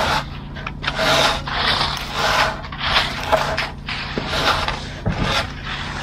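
A concrete rake and a straightedge screed scraping through stiff, gravelly concrete in repeated strokes, about one or two a second, over the steady low hum of the concrete mixer truck's engine.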